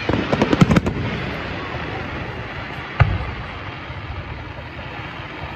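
Fireworks going off: a quick run of sharp crackling bangs at the start, then one deep boom about three seconds in, with a steady background hiss between.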